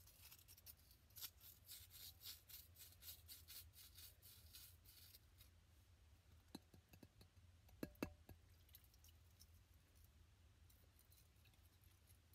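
Faint scraping and scratching of a small tool digging at a hard, sand-packed dig block, a quick run of scratches for about five seconds, then a few sharp clicks around seven to eight seconds in.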